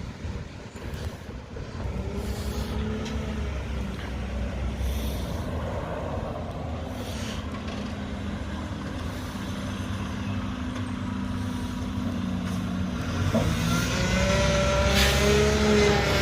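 Garbage truck's diesel engine running steadily, then getting louder with a whine rising in pitch over the last few seconds.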